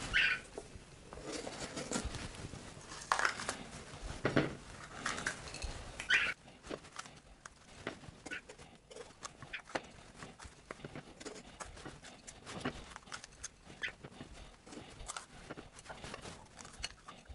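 Knife cleaning bell peppers: irregular crunches and snaps as the blade cuts through the crisp pepper flesh and core, with light clicks of handling on the plate. A few louder crunches come in the first six seconds, then lighter scattered ticks.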